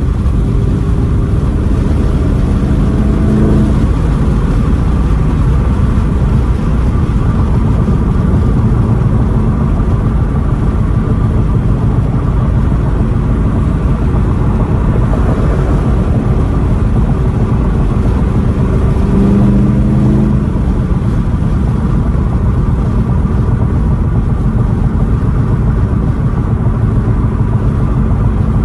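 2018 Chevrolet Camaro ZL1's supercharged 6.2-litre V8 on its stock exhaust, running with a steady low rumble. It briefly swells in tone about three seconds in and again around twenty seconds in.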